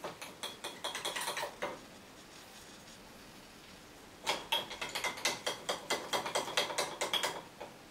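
Paintbrush dabbing acrylic paint onto a stretched canvas: quick tapping strokes, several a second, in two bursts, the first for about two seconds and the second from about four seconds in until near the end.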